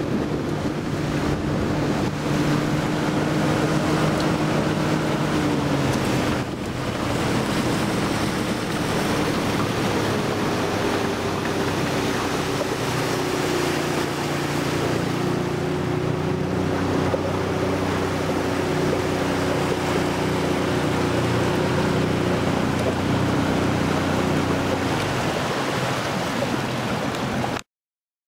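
Outboard motor of a small RIB inflatable boat running under way, over the rush of water and wind. The engine note shifts in pitch a couple of times, and the sound cuts off abruptly near the end.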